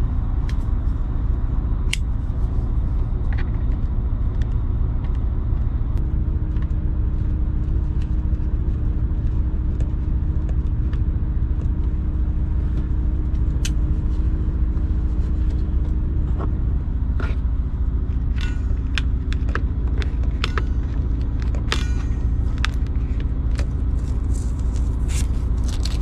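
A steady low machine rumble with a pitched hum. Scattered light clicks and knocks come in the last third.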